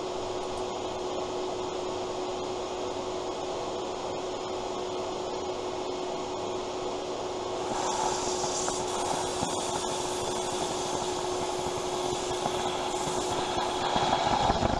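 Shop vacuum cleaner running with a steady whine, its hose drawing a vacuum on a lathe headstock gearbox so that the oil stays in the sump. From about eight seconds in, a hiss joins it as air is sucked past the drain plug being unscrewed.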